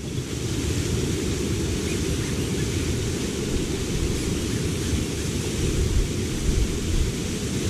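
Waterfall and cascading mountain stream rushing, a loud steady roar of water.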